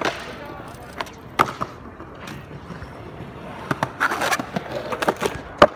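BMX bike being ridden on a hard surface: steady tyre-rolling noise broken by several sharp knocks and clacks as the bike hits the ground. The loudest knock comes near the end.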